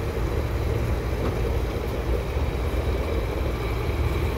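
Gas station pump dispensing fuel, a steady rushing hum of the pump and the fuel flowing through the hose into the tank.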